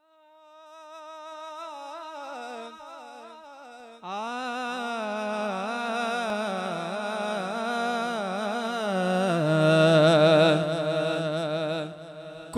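A male naat reciter singing a wordless, drawn-out melodic opening with wavering vibrato, fading in. About four seconds in it becomes louder and fuller as a lower voice line joins beneath it.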